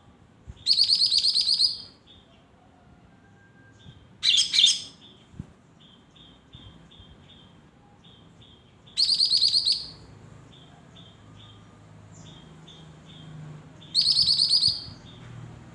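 Lesser green leafbird (cucak ijo mini) singing: four loud, high bursts of rapid trilled notes, each about a second long, with soft short chips repeating in between.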